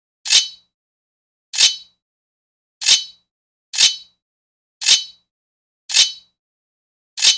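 Sword blade scraping against metal in seven short, separate strokes, each about a third of a second long with a bright metallic ring, spaced a second or so apart.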